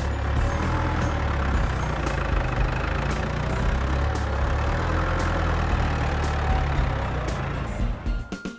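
A heavy vehicle engine running steadily at a low pitch, dying away near the end.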